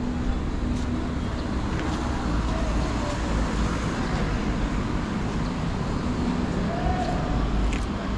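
Road traffic on a city street: a steady rumble of engines and tyres from passing cars and trucks.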